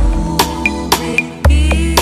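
Electronic DJ battle-mix dance track: a deep bass hit falling in pitch at the start, sharp drum hits, and another long deep bass hit about one and a half seconds in.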